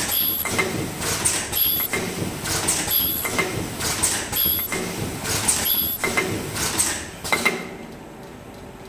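Automatic mask earloop welding line with its earloop folder and counting conveyor running: clacks and short air hisses repeating about every second and a half. The clatter drops away about seven and a half seconds in, leaving only a faint steady background.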